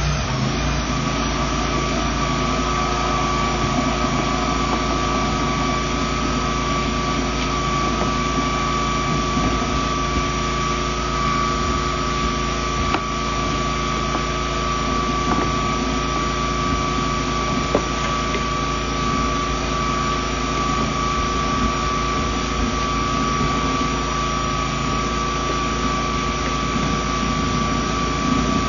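Hydro jetter's engine-driven high-pressure pump running steadily at constant speed, an even drone with a steady high whine over it.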